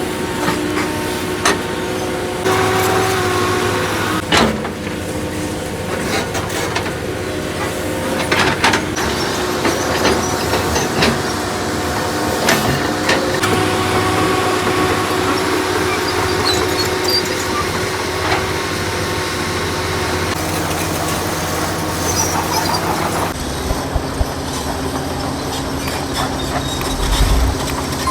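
Hydraulic excavator working: diesel engine running steadily with whining tones that shift as the hydraulics are loaded, and scattered metallic clanks.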